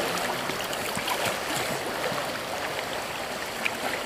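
River water rushing steadily over a shallow, rippling stretch of current.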